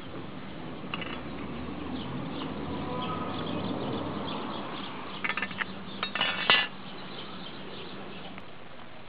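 Hard, light clicking and clattering of a blue crab's shell and claws against a stick and concrete, in two quick runs about five and six seconds in, the second louder.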